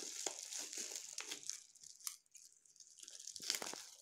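Plastic bubble-wrap pouch crinkling and rustling in the hands as it is opened, with a quieter pause about midway.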